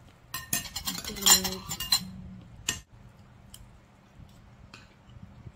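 Cutlery clinking and scraping against plates while eating: a quick cluster of clinks in the first two seconds, then a few scattered single clinks.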